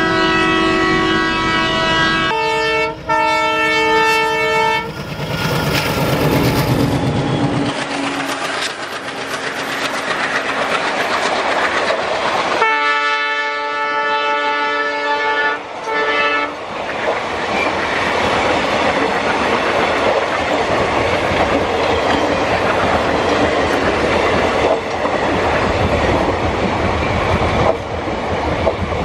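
Diesel locomotive horns sounding three times, each a chord of several steady notes held for a few seconds. Between and after the horns come the loud rumble and wheel clatter of trains passing.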